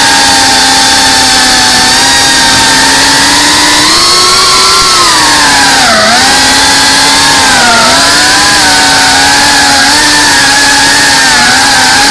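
FPV quadcopter's brushless motors and propellers whining, picked up by the camera on the drone, the pitch shifting with throttle: it rises around four seconds in and dips briefly around six and again near eight seconds.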